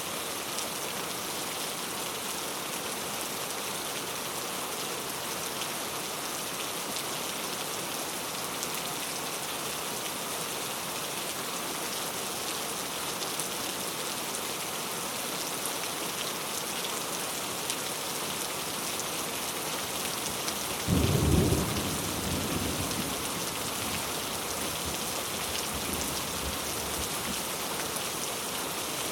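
Heavy rain pattering steadily, with one sudden crack of thunder about two-thirds of the way through that rumbles away over several seconds.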